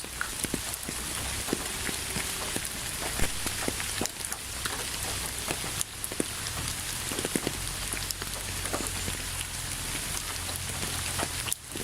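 Steady rain falling on a surface, a dense even hiss with many distinct drops landing close by.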